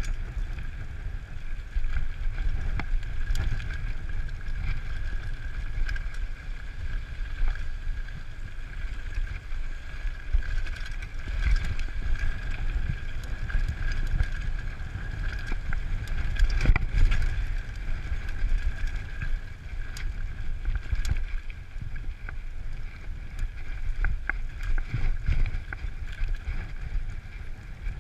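Mountain bike descending a rough, rocky dirt track: wind rumbling on the microphone, with tyre noise and the bike rattling and knocking over the bumps.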